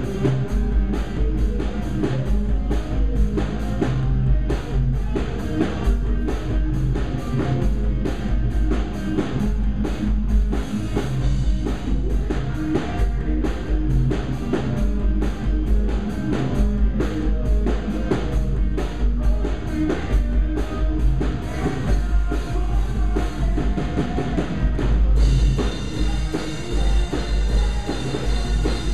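Post-hardcore band playing live, with guitar and fast, dense drumming. About 25 seconds in the sound turns brighter and fuller at the top.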